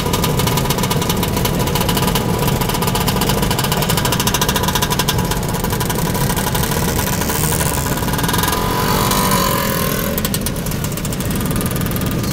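Many scooter engines running together, largely classic two-stroke Vespas and Lambrettas, a steady loud mass of engine noise as the pack moves off slowly.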